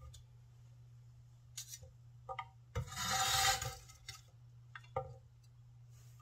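A steel Chinese vegetable cleaver (Winco KC-401) scraping flat across a wooden cutting board, scooping up chopped broccoli. There is one long scrape about three seconds in, with a few light taps of the blade and pieces before and after it.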